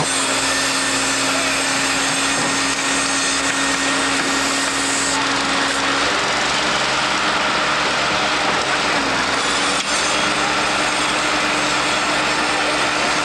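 A small engine running steadily, with a held hum that steps up slightly in pitch about six seconds in, over a constant wash of construction-site noise.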